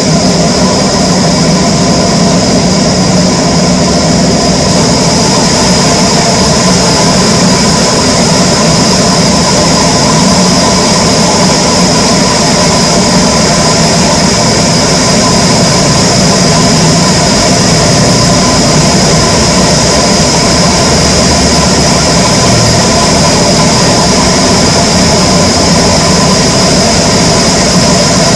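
Heavy machinery running steadily at a constant loud level, a low hum with a high whine over it, with no change in load.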